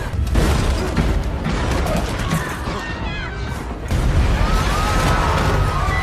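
Earthquake sound effect: a continuous deep rumble mixed with crashes and knocks, with some wavering high tones over it in the second half.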